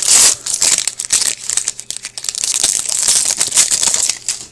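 Crinkling of a 2015-16 Upper Deck Series 2 hockey card pack's wrapper as it is opened and handled: a dense, loud crackle that dies away at the end.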